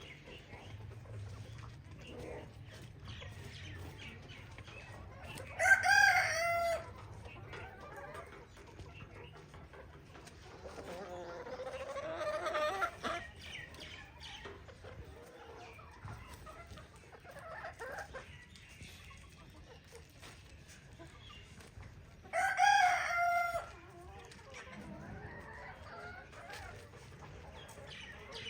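Free-range chickens clucking, with a rooster crowing loudly twice: about six seconds in and again past the twenty-second mark. A longer, quieter crow comes in the middle.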